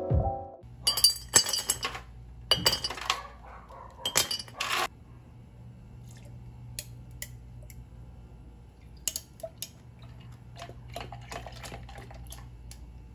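Several bunches of sharp clinking and clattering of tableware and glass in the first five seconds, then milk pouring from a carton into a glass mason-jar mug, a faint steady pour over a low hum, with a few light clinks near the end.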